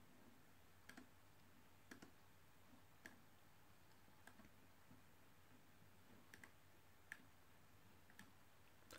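Near silence with about eight faint, short clicks spaced roughly a second apart: a computer mouse clicking through images on screen.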